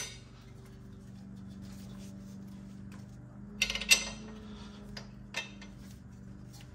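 Metal clinks and taps of bolts against the steel ball joint and upper control arm as they are lined up and fitted. There is a sharp clink at the very start, a quick run of clinks about four seconds in, and one more just after five seconds, over a steady low hum.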